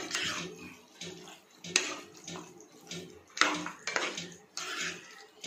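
Metal spoon stirring and scraping pieces of goat liver, kidney, heart and lungs around a frying pan, with a wet frying sound; several sharper scrapes stand out about a second or so apart.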